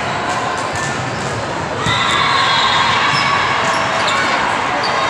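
Din of a crowded sports hall during volleyball play: many voices and shouts blending into a steady roar, with sharp smacks of volleyballs being hit. The noise swells about two seconds in.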